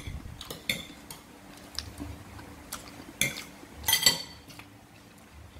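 Metal spoon clinking and scraping against ceramic dishes. A handful of sharp, briefly ringing clinks are spread out, with the loudest cluster about four seconds in.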